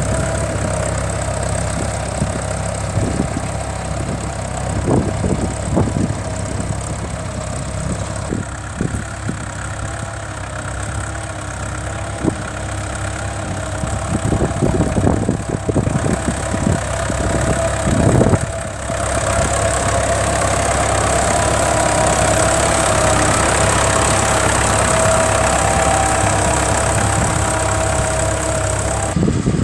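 An engine running steadily at idle, with irregular knocks during the first two-thirds.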